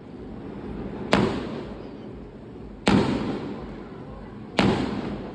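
Fireworks exploding: three loud booms about one and a half to two seconds apart, each trailing off in a long fading rumble.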